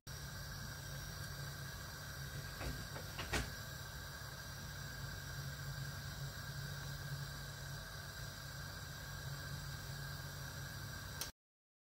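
Steady hiss of a gas stove burner under a pot of soup coming to the boil, with a low hum. There are a couple of light knocks about three seconds in, and the sound cuts off suddenly near the end.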